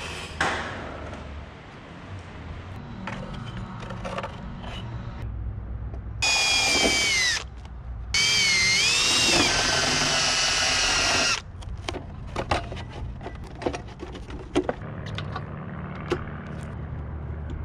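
Cordless drill boring holes through a composite engine cowling for the spark plugs, in two runs about six and eight seconds in, the second lasting about three seconds, its motor whine dipping and rising with trigger and load. Light clicks and knocks from handling the cowling before and after.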